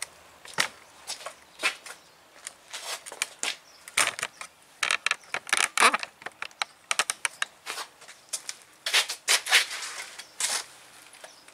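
Irregular scuffs, clicks and knocks of someone moving about and handling things on a gritty concrete floor. The loudest clusters come a little before halfway and again near the end.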